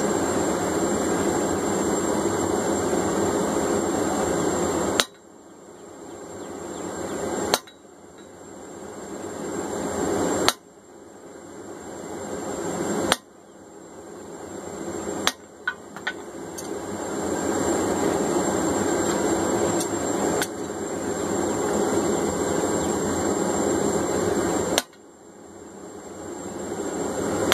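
A hand hammer strikes a top fuller held in tongs against red-hot steel on an anvil, about eight sharp blows a couple of seconds apart, with a quick pair near the middle, setting fuller grooves into the hot metal. A steady rushing noise runs underneath; it drops away after each blow and swells back.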